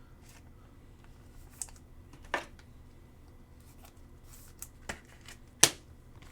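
Scattered light clicks and taps of trading cards and their plastic holders being handled on a table, about half a dozen, the sharpest one near the end.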